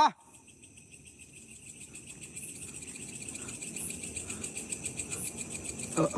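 Crickets chirping steadily in a fast, even trill that slowly grows louder. Right at the start a brief, loud sound glides sharply down in pitch, and a shorter one is heard near the end.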